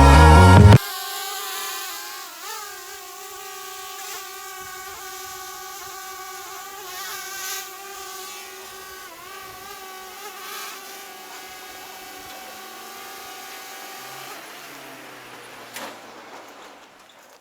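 Electric motors of a small FPV drone whining steadily, the pitch dipping briefly and recovering every second or two, then fading out near the end. Background music cuts off just under a second in.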